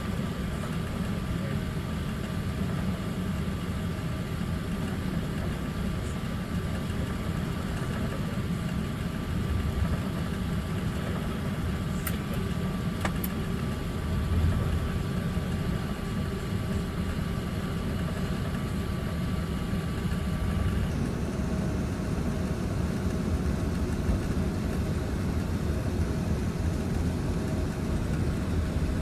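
Steady cabin noise inside an Airbus A380 moving on the ground: a low, even rumble of the aircraft rolling with its engines at low power. A faint steady whine runs under it and stops about two-thirds of the way through.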